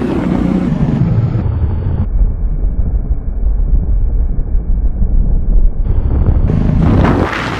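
KTM RC 200's single-cylinder engine running through an exhaust with the dB killer removed, heard while riding with heavy wind noise on the microphone. Near the end the engine revs up, its pitch rising.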